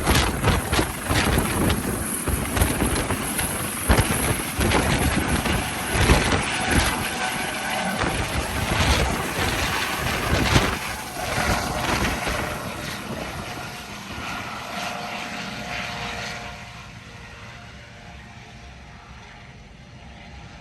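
Helicopter taking off and flying away: loud rotor noise with gusty rumbling at first, fading steadily through the second half as it moves off.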